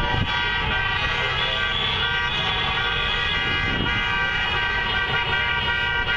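Many car horns sounding at once in a continuous, overlapping honk, the protest honking of cars driving past, over the low rumble of the passing traffic.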